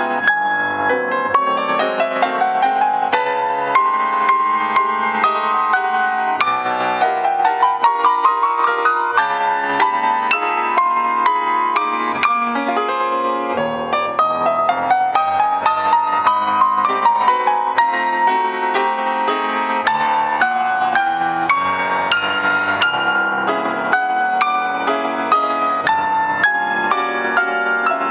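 Grand piano played solo in a classical style: a fast, busy passage of quick notes, with rising runs a little after the start, about a third of the way in, and around the middle.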